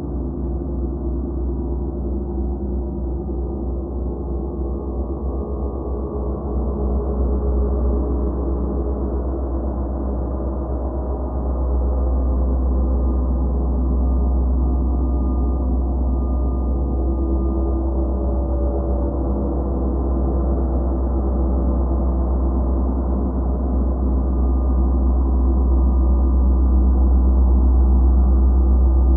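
Gongs played continuously in a gong bath: a sustained, overlapping wash of ringing tones over a deep low hum, slowly growing louder, with a swell about twelve seconds in.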